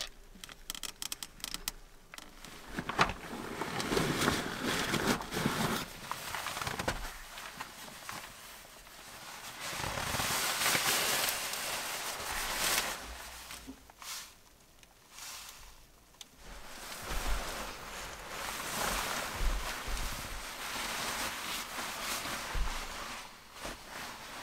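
A sleeping bag and bedding rustling as they are handled and spread out, in several spells with quieter gaps between. A quick run of small clicks near the start.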